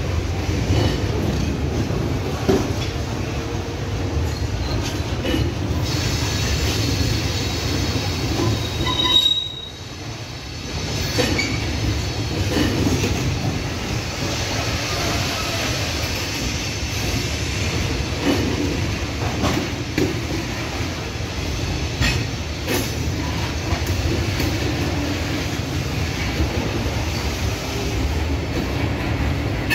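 Freight train hopper cars rolling past: steady steel wheel-on-rail rumble with repeated clicks as the wheels cross rail joints and a high wheel squeal at times. The sound dips briefly about ten seconds in.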